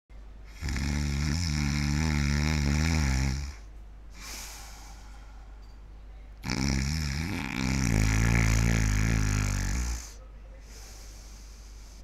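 A man snoring loudly, heavy stertorous breathing: two long snores of about three seconds each, wavering in pitch, the second starting about six and a half seconds in, with quieter breaths between them.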